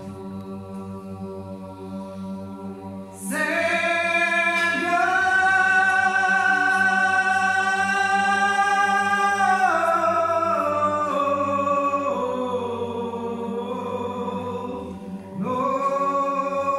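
Unaccompanied Orthodox liturgical chant: a steady low held note runs under a sung melody of long held notes. The melody comes in strongly about three seconds in, drops lower and softer midway, and swells again near the end.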